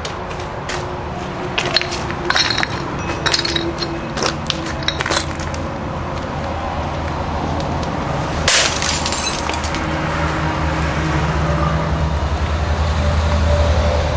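Horror-trailer sound design: a dark low drone with held tones, swelling toward the end. Over it come scattered sharp crackles and clicks for the first five seconds or so, and a short hissing burst about eight and a half seconds in.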